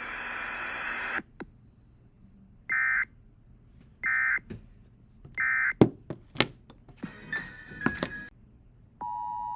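Static hiss from the alert broadcast cuts off about a second in. Three short, high digital data bursts of an Emergency Alert System end-of-message code follow, about a second and a half apart. Then come a few sharp knocks and clicks, and near the end the steady two-tone EAS attention signal begins for the next alert.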